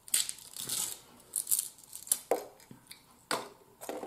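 A fortune cookie being torn open by hand: a series of short crinkling, tearing sounds, about six in all, with brief pauses between.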